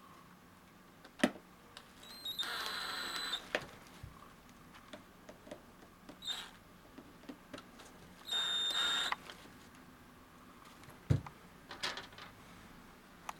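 Cordless drill/driver running in two short bursts of about a second each, with a steady whine, driving screw-in metal studs into the rubber sole of a jogging shoe. A few sharp knocks from handling the shoe and drill come in between, the loudest near the end.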